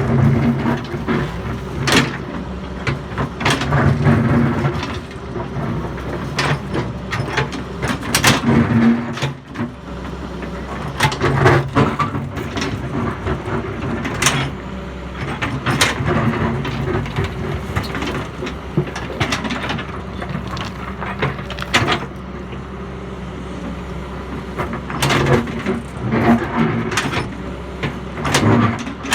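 Doosan excavator's diesel engine running and working. Its note swells every few seconds as it takes load, with many sharp clanks and knocks in between.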